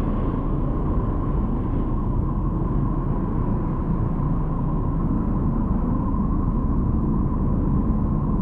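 Steady, low rumbling drone with a faint steady tone near 1 kHz, a mix of layered sounds built to imitate a planet's electromagnetic 'space sound' recording.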